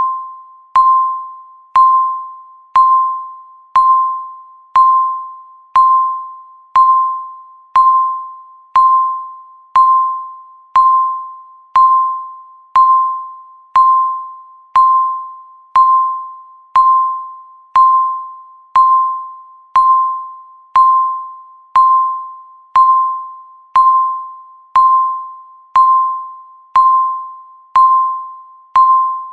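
Electronic countdown-timer beep repeating once a second, each beep marking one second counted down. Every beep is the same single clear tone, starting sharply and fading away before the next.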